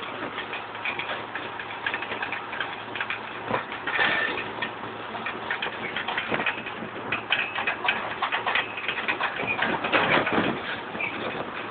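Planter towed by a tractor across barley stubble while sowing soybeans: dense, irregular clicking and rattling of the planter's metal parts, over a faint, steady tractor engine hum.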